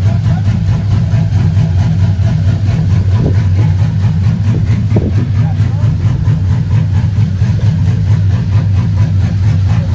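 Vehicle engine running with a steady low drone and no revving, with faint voices underneath.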